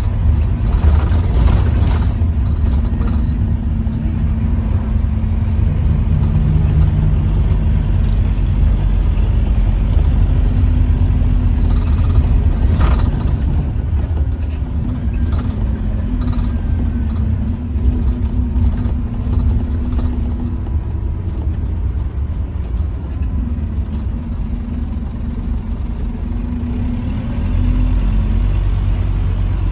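Scania K230UB single-deck bus under way, heard from inside the saloon. Its diesel engine and ZF automatic gearbox run steadily, the pitch stepping up and down as the bus changes speed. Brief rattles come about a second in and again around thirteen seconds, and the drivetrain grows louder near the end.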